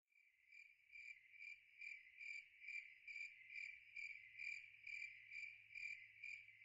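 Faint cricket chirping: a steady high trill that swells in pulses about twice a second, starting suddenly out of silence.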